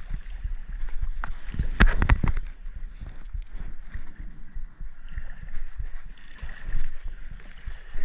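Creek water sloshing and splashing in irregular knocks, with a louder run of splashes about two seconds in.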